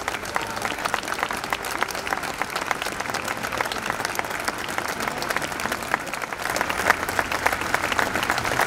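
A large crowd applauding without a break, many hands clapping at once. The applause swells about two-thirds of the way in.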